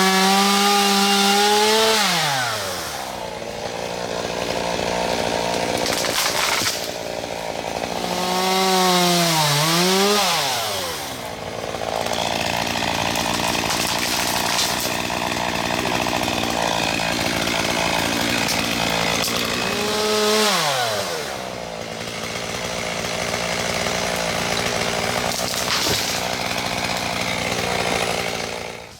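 Gas chainsaw revving to full throttle and cutting into a tree trunk for a hinge cut. It drops back and revs up again twice, runs steadily under load in between, and cuts off abruptly near the end.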